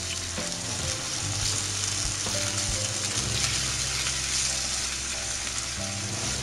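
Boneless chicken pieces sizzling in hot oil in a pan with a steady hiss, stirred and turned with a spatula.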